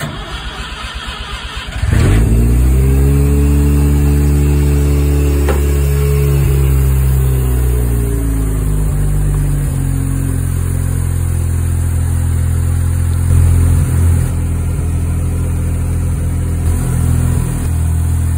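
Mazda 13B rotary engine in a Willys Jeep cranking on the starter for about two seconds, then catching and running at a fast idle that eases down and settles to a steady idle. This is a first start after the engine has sat for a month.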